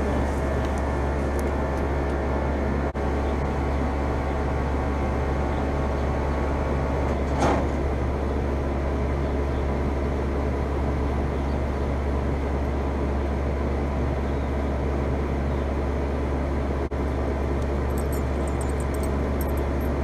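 Steady low hum and fan noise of outdoor heat pump units running in heat mode.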